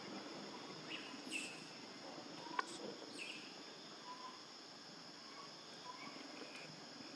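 Steady high-pitched insect drone, with a few short faint chirps scattered through and a single sharp click about two and a half seconds in.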